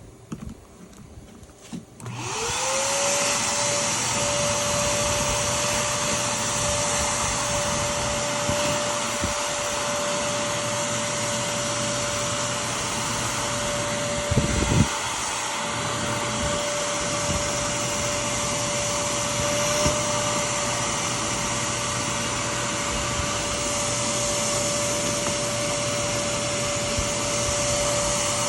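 Vacuum motor, as used for dryer vent cleaning, starts about two seconds in, spins up to a steady high whine over rushing air, and runs on. About halfway the whine briefly drops, with a couple of knocks.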